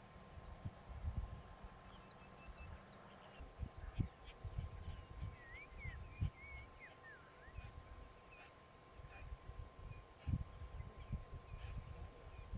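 Outdoor bush ambience: birds giving short whistled glides and chirps, most of them around the middle, over an uneven low rumble of wind on the microphone.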